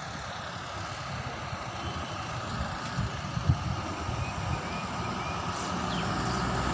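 Bus engine running as the bus pulls out through a gate, its rumble growing louder toward the end over steady outdoor street noise, with a single sharp knock about three and a half seconds in.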